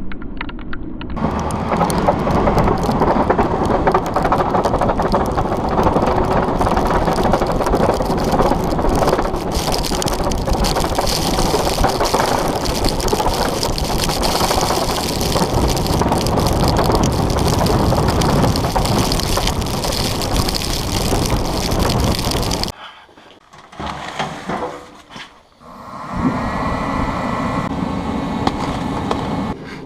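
Fisher Minute Mount snowplow blade scraping and crunching over ice as the truck pushes it, a loud rough noise full of cracks. It breaks off suddenly about three-quarters of the way through, leaving a few quieter scrapes and then a steadier engine hum with a faint high tone.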